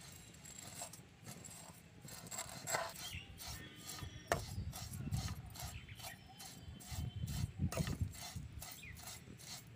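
Steel spoon stirring and scraping vermicelli as it roasts in oil in a non-stick pan: irregular scrapes and rustles, with a sharper clink of the spoon against the pan about four seconds in.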